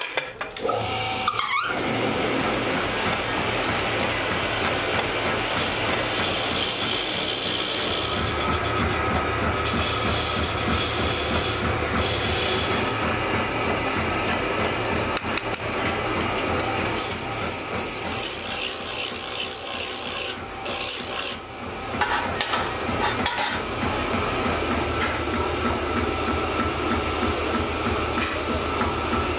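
Metal lathe running while its cutting tool turns down a steel shaft: a steady machining noise with a faint high whine.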